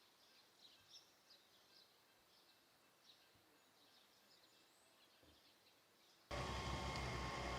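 Faint birdsong: scattered short, high chirps. About six seconds in, a much louder steady sound with a regular low pulse cuts in suddenly.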